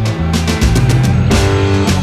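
Background rock music with electric guitar and a drum kit.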